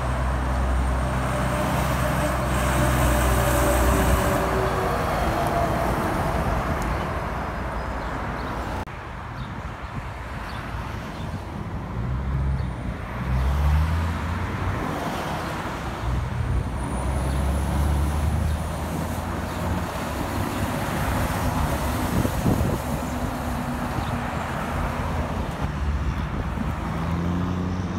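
Heavy diesel trucks and cars passing on a highway: engines droning under tyre noise, growing louder and fading as each vehicle goes by.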